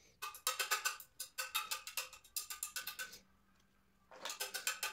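A fast, irregular run of sharp metallic clicks or tinkles, each ringing with the same bright tones, which stops after about three seconds and comes back in a shorter burst near the end.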